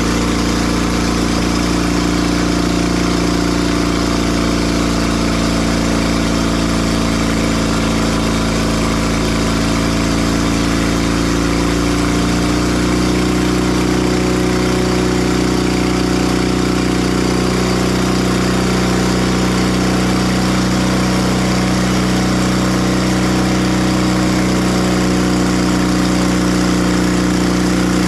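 Timber Harvester bandsaw mill's engine running steadily while the mill saws a white pine log, its pitch rising slightly about halfway through.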